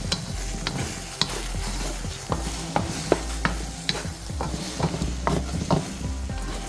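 Eggs with onions and garlic sizzling in oil in a hot wok while a cooking utensil scrapes and taps against the pan, giving irregular sharp clicks over a steady sizzle.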